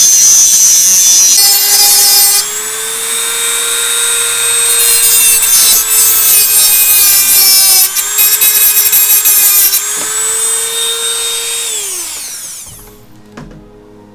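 A high-speed rotary tool runs and cuts off the tip of a part. Its motor whine dips a few times under load, then winds down and stops about twelve seconds in.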